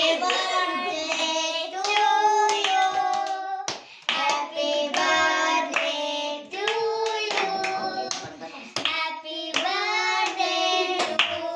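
Children and family singing a birthday song together while clapping their hands along with it.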